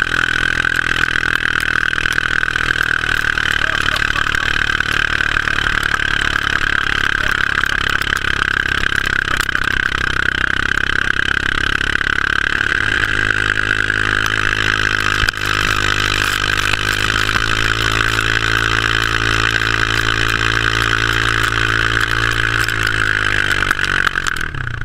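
Engine of a vehicle towing a man through deep snow, running steadily under a constant hiss of churned snow. Its note changes about halfway through and drops away just before the end as the tow slows to a stop.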